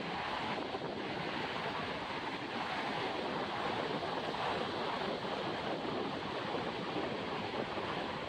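Ocean surf breaking and washing steadily up a sandy beach, with wind blowing across the microphone.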